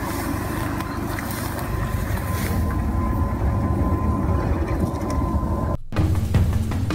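Citroën C5 crawling through tall grass on a dirt track: a steady low rumble of the car with a thin steady whine over it. It cuts off just before the end, and music starts.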